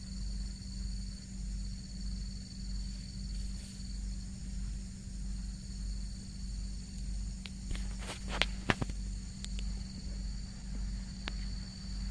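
Steady high insect chirring over a low, evenly pulsing throb, with a few sharp knocks about two thirds of the way in.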